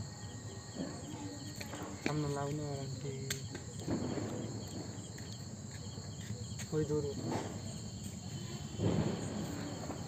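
Crickets chirping steadily, with faint voices heard twice in the background.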